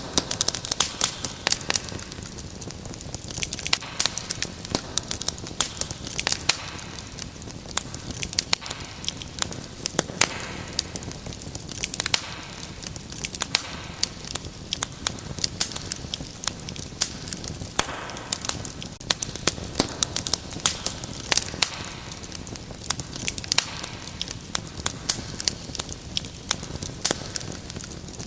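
Fire crackling in a fireplace: dense, irregular snaps and pops over a soft steady hiss.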